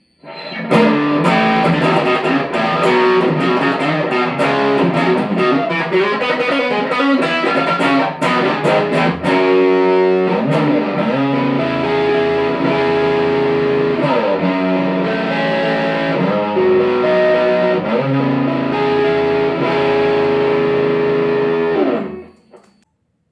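Gibson Custom Shop 1959 Les Paul Standard reissue electric guitar played through an overdriven amp on its front (neck) pickup: quick single-note lead runs for about the first ten seconds, then slower, held chords and notes that ring out, stopping about a second before the end.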